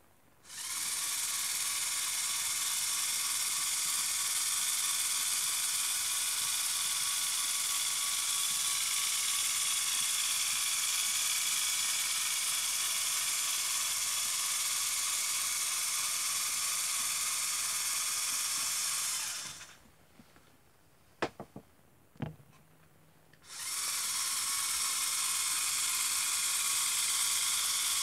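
Lego Technic halftrack's small electric motors and plastic gear trains running with a steady high whir. They stop a little past two-thirds of the way through, a few sharp clicks follow, then they start up again and run steadily.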